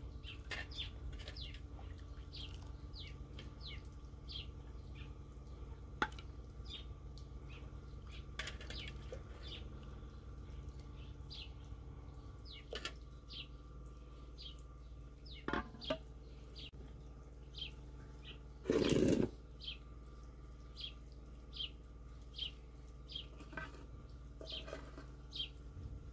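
Small birds chirping over and over, with a steady low hum beneath. A few sharp clicks fall here and there, and about three-quarters of the way through comes a louder noisy burst lasting about a second.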